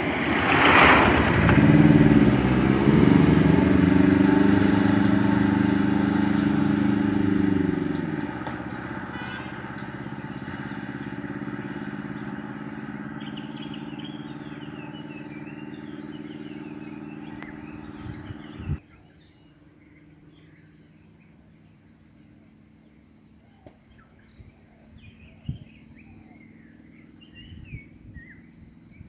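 A motor vehicle engine running close by, loudest in the first several seconds, then settling to a steadier, lower hum that cuts off suddenly about two-thirds of the way through. Faint bird chirps come through in the second half.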